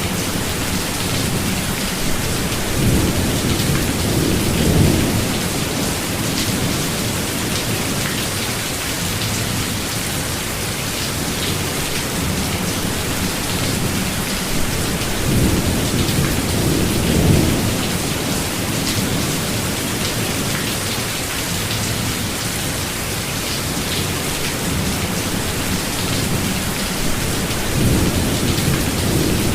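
Steady heavy rain hissing, with low rolls of thunder swelling and fading three times: a few seconds in, around the middle, and near the end.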